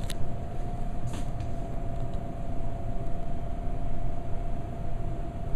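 Steady machine hum: a low rumble with one constant mid-pitched tone running under it, and a couple of faint clicks.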